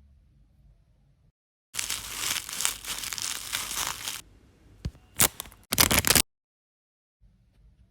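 Photocard packet wrapper being torn open, crinkling for about two seconds, then a few short, sharp crackles as it is handled.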